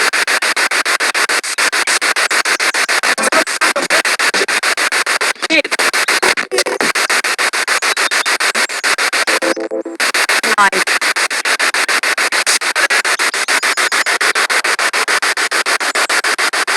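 Spirit box, a radio scanning rapidly through stations: loud static chopped several times a second, with brief snatches of broadcast voice and tone, one just past the middle.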